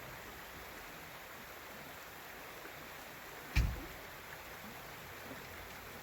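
Creek water flowing steadily, with a single sharp thump about three and a half seconds in.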